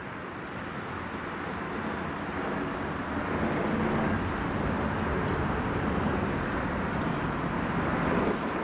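Aircraft passing overhead: a broad rumble and rush that swells over the first few seconds and then holds steady.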